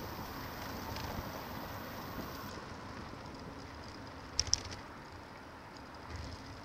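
Bicycle riding noise: wind on the bike-mounted camera's microphone over a steady rumble of tyres on the road. Two sharp clicks a little over four seconds in.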